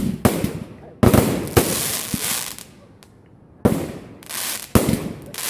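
Aerial fireworks bursting close by: a rapid series of sharp bangs, each trailing off in a hiss of sparks, with a lull of about a second in the middle before several more bangs.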